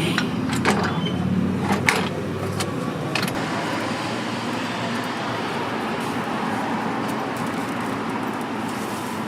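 Steady street traffic noise, with several sharp clicks in the first three seconds.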